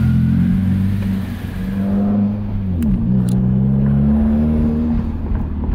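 Subaru WRX STI's turbocharged flat-four running through a Tomei Expreme titanium single-exit exhaust, heard from inside the cabin as the car drives at low revs with a steady low drone. About three seconds in the note dips briefly and picks up again, with a couple of light clicks.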